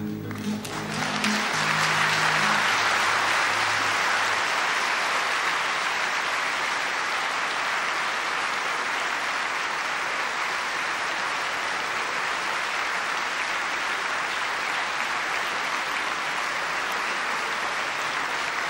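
Large concert audience applauding steadily at the end of a song, while the last acoustic guitar chord rings out and dies away over the first few seconds.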